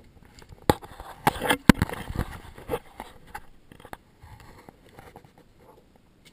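Handling noise inside a van: a burst of sharp knocks, clatter and scraping for about two seconds, starting just under a second in, then fainter scuffing and rustling.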